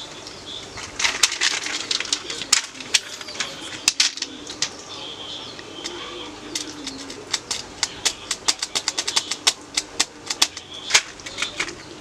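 Plastic keyboard keycaps and parts clicking and clattering as they are handled and taken off, in quick irregular clicks that come thickest near the end.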